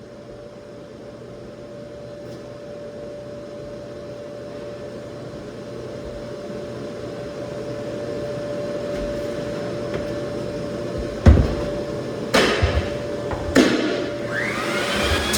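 Lagler Flip floor sander motor running steadily with a constant hum that grows slowly louder, then three sharp knocks near the end.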